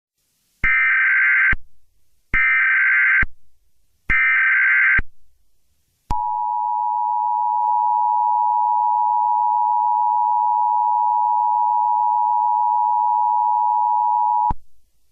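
Emergency Alert System tones: three roughly one-second bursts of buzzy SAME header data, then the two-tone attention signal (853 and 960 Hz) held steady for about eight seconds, announcing that an emergency alert message follows.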